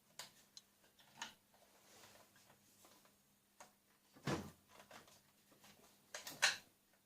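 Telescopic rifle stock being handled and slid on its buffer tube: scattered light plastic-and-metal clicks and knocks, the loudest a little past the middle and a quick pair near the end.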